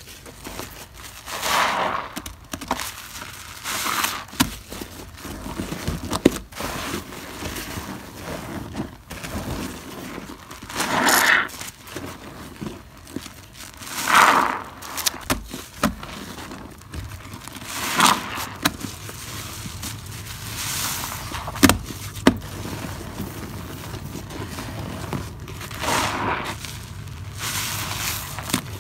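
Soap-soaked sponges squeezed by hand in foamy water: wet squelching with crackling, popping suds. It swells with each squeeze, every few seconds.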